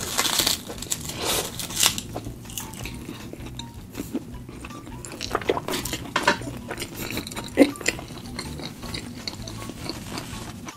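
Close-miked eating: a bite into a kimbap roll, then chewing with many irregular crunchy, wet mouth clicks.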